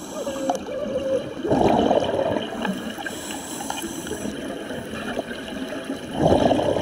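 Water sloshing and gurgling, with two louder surges, one about a second and a half in and another near the end.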